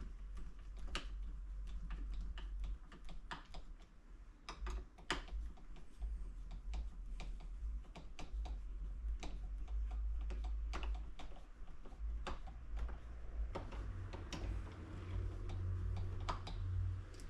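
Hand screwdriver turning the mounting screws of a new doorknob, with irregular small clicks and ticks of the screwdriver and the knob's metal and plastic parts.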